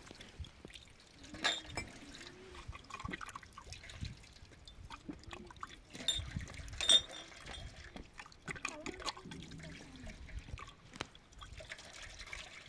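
Water trickling and dripping, with a few sharp taps, the loudest about one and a half seconds in and twice around six to seven seconds in.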